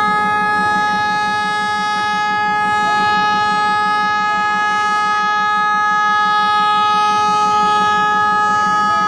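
Air horn of a WDM-3A diesel locomotive sounding one long, steady blast at a single pitch.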